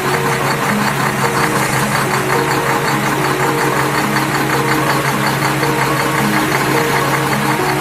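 Dubbed-in engine sound effect running with a steady, rapid knocking chug, over background music with held notes.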